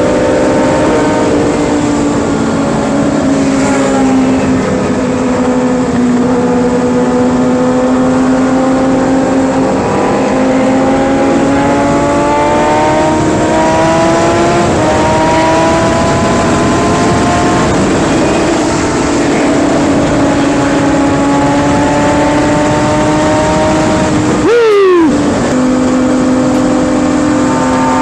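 Kawasaki ZX-6R 636 inline-four sport-bike engine running at highway speed, its pitch drifting slowly up and down with the throttle, over steady wind rush on the microphone. Near the end the revs rise and fall sharply once.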